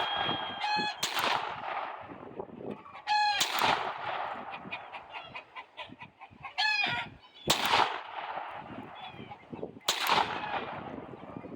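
Glock 44 .22 LR pistol firing four single shots a few seconds apart, each sharp crack followed by a short ringing tail. Chickens squawk in short stacked calls between the shots, over steady wind noise.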